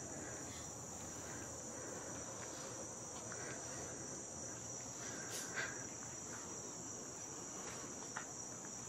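Steady, high-pitched chorus of insects such as crickets, with a faint click about five and a half seconds in.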